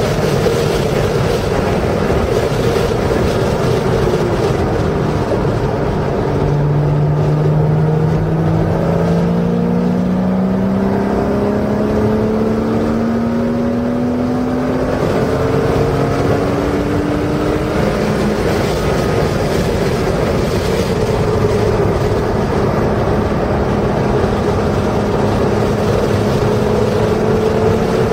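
Porsche's engine under load, heard from inside the car while lapping a race track, mixed with wind and road noise. The engine note holds steady, then from about six seconds in climbs steadily in pitch for about ten seconds as the car accelerates.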